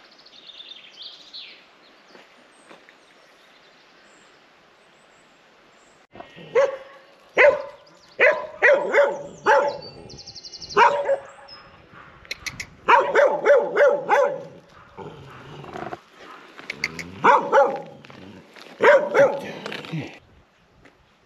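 Farm dog barking in quick bursts of sharp barks, starting about six seconds in and going on for some fourteen seconds.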